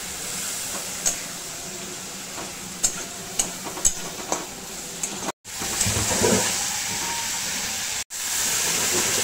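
Tomato-and-spice masala sizzling and hissing in oil in a pan as it is fried down with a little water, with a few sharp taps of the spatula on the pan. The sound drops out for an instant twice, and the sizzle is louder after the first break.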